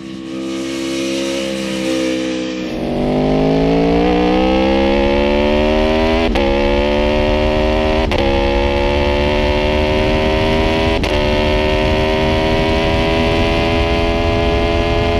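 Aprilia RSV4 RF's V4 engine under hard acceleration, heard on board. After a steady note, it gets louder about three seconds in, and the pitch climbs steadily, broken by three quick upshifts.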